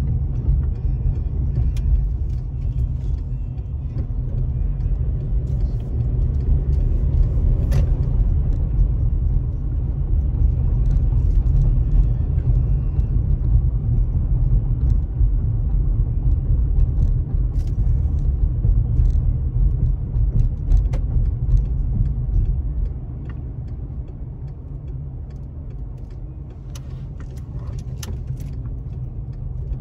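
Car road noise heard from inside the cabin: a steady low rumble of tyres and engine, with scattered light clicks and rattles. It becomes quieter about three quarters of the way through as the car slows.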